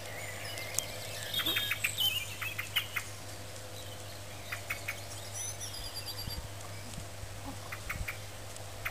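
Small birds chirping and twittering, with several quick runs of three or four short clicks and a steady low hum underneath.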